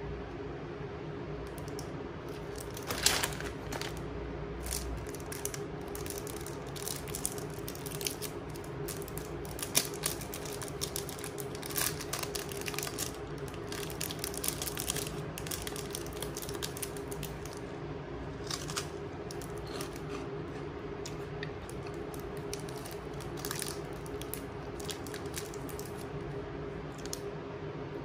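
Plastic snack wrappers crinkling and crackling as they are handled and opened, in short, irregular bursts. The sharpest crackle comes about three seconds in, over a steady low hum.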